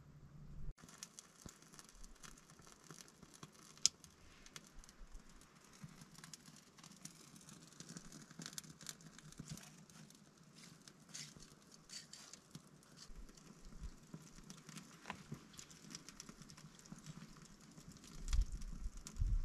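Wood fire crackling with many irregular small pops and one sharp pop about four seconds in; a few louder bumps near the end.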